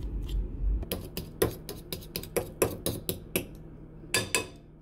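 Metal fork mashing banana in a ceramic bowl, its tines clicking against the bowl about four times a second, with a short pause near the end. A low rumble runs under the first second.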